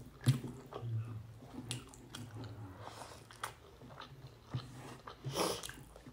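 Close-miked chewing and eating sounds of rice and fish: soft wet smacks and clicks. A louder, breathy mouth noise comes about five and a half seconds in.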